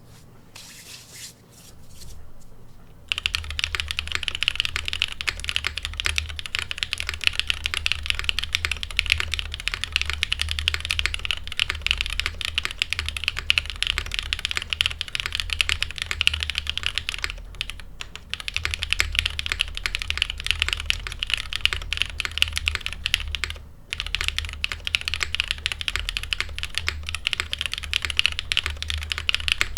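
Continuous fast typing on a Frog TKL mechanical keyboard with lubed linear Black Cherry Pie switches in a top-mounted aluminium plate, capped with GMK keycaps. The typing starts about three seconds in and breaks off briefly twice.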